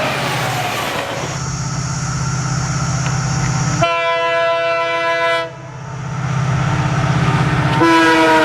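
Train running past with a steady rumble, its locomotive horn sounding a long blast about four seconds in and a second blast near the end.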